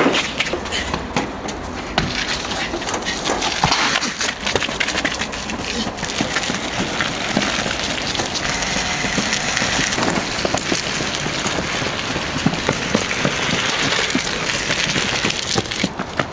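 Running footsteps on asphalt and concrete with rustling and knocks of a handheld camera carried at a run, mixed with voices.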